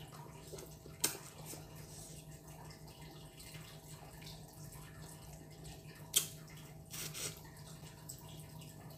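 Quiet mouth sounds of eating fish head by hand: sucking and lip smacks, with short sharp smacks about a second in and again around six and seven seconds in.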